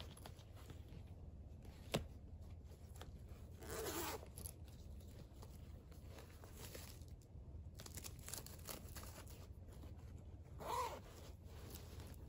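Cloth pouches and a clear vinyl, mesh-sided bag organiser being handled and rustled. A sharp click comes about two seconds in, and two short louder rustles come near four seconds and again near the end.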